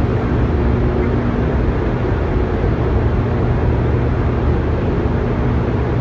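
Hydroelectric generating units in the Hoover Dam powerhouse running, filling the hall with a steady, loud, low machine hum.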